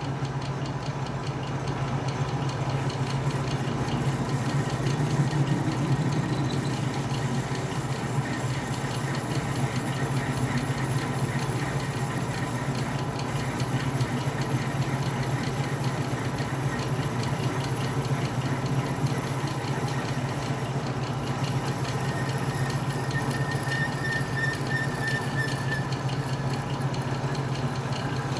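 Atlas metal lathe running steadily with an even low hum. A faint high whine comes in for a few seconds near the end.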